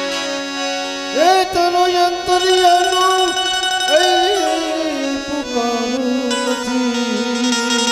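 Live Gujarati devotional bhajan music with Indian banjo, tabla and manjira accompaniment; a melody line holds long, wavering notes, entering about a second in and again about four seconds in.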